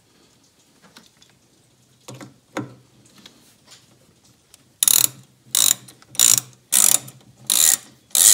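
Hand ratchet clicking in short strokes while screws on a wiper motor's circuit-board cover are driven in: a few faint handling clicks at first, then from about halfway a steady run of rasping ratchet strokes, roughly one and a half a second.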